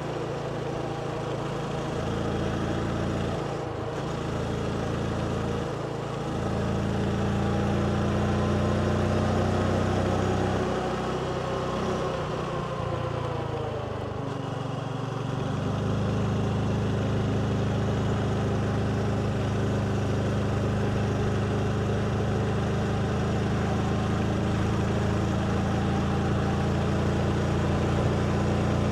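Motorbike engine running while riding, with a steady rush of road noise. The engine note shifts and falls through the first half, then holds steady from about halfway on.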